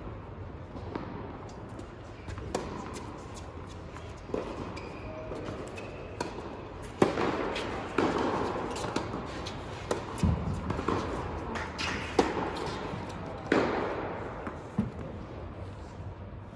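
Tennis ball struck by rackets in a rally on an indoor hard court: sharp pops with a hall echo, one every second or two through the middle of the stretch, with lighter ball bounces in the quieter parts before and after.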